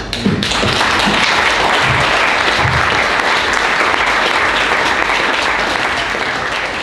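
Audience applauding steadily, breaking out just after the start and easing off slightly near the end.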